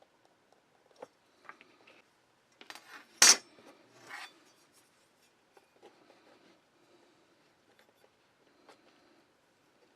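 Metal tools and leather being handled on a workbench: scattered clicks and short scrapes, with one loud sharp clatter about three seconds in.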